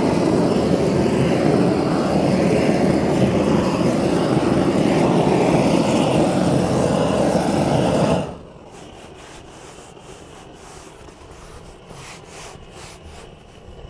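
Propane roofing detail torch burning steadily with a loud roar of flame, played over smooth torch-down membrane to burn off its bottom film so it bonds. The flame noise stops abruptly about eight seconds in, leaving a much quieter steady background.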